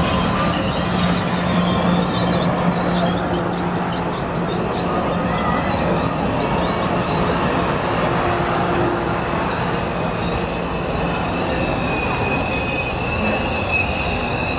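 Streamlined stainless-steel passenger cars rolling past close by: a steady rumble of wheels on rail with high, wavering wheel squeal that settles into a steadier squeal near the end. A low steady hum runs under it through the first half.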